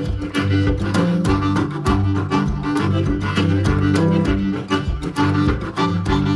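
Intro music with a steady beat, strings and a bass line.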